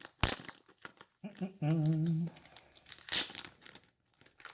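Plastic wrapping crinkling and tearing in sharp crackles as a bagged comic is opened by hand, with a brief hummed note from a man's voice about a second and a half in.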